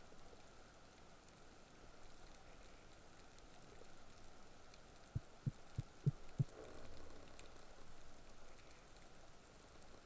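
Faint underwater ambience: a steady low hiss with scattered tiny ticks, and a quick run of about five dull low knocks around the middle.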